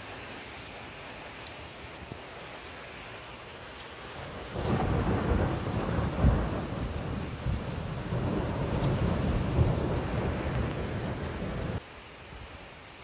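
Thunderstorm: steady heavy rain with thunder rumbling. About four seconds in, the rain and a low rumble of thunder grow much louder, peaking around six seconds in, then drop off abruptly near the end.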